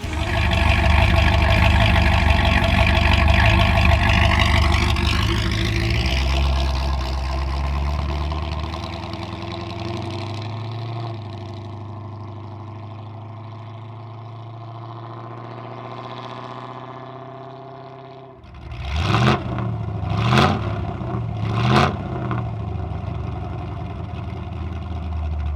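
1976 Corvette Stingray's 350 V8 running, its engine note easing down slowly over the first eighteen seconds. It then gives three quick throttle blips about a second and a half apart and settles into a steady idle.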